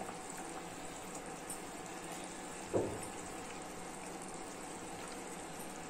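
Anchovy curry simmering in a clay pot, a steady low bubbling, with one soft plop about three seconds in as a fish is dropped into the thick gravy.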